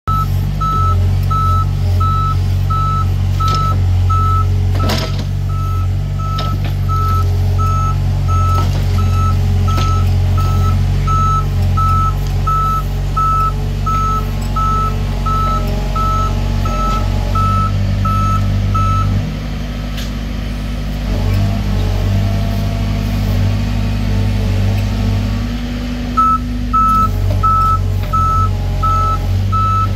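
Diesel earthmoving machine running, its reversing alarm beeping steadily about twice a second. The beeping stops about two-thirds of the way through while the engine note shifts, then starts again near the end.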